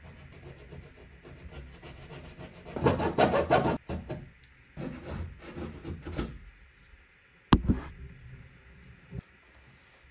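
Hand-held blade sawing and scraping through drywall in quick rough strokes, cutting out a small rectangular opening. The strokes are loudest about three seconds in and come again around five to six seconds. A single sharp crack about seven and a half seconds in is the loudest sound, and there is a lighter knock near the end.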